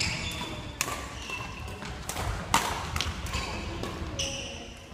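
Badminton rally: a few sharp racket hits on the shuttlecock about a second apart, with short squeaks of court shoes on the wooden gym floor between them.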